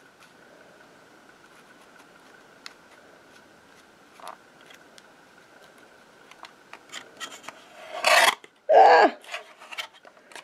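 Paper trimmer and a paper strip being handled, with faint rubbing and a few light clicks. About eight seconds in comes a sudden loud burst, then a short sound falling in pitch that may be a yelp.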